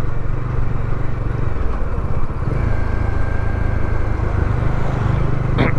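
Motorcycle engine running at a steady cruise under wind and road noise, heard through a lavalier mic inside the rider's helmet.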